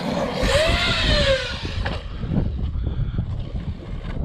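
Traxxas Sledge RC truck's electric motor whining up in pitch and back down as the truck accelerates and slows, about a second in. Under it is a constant rumble with scattered clicks from tyres and chassis on rough ground. The owner suspects a failing bearing in the motor.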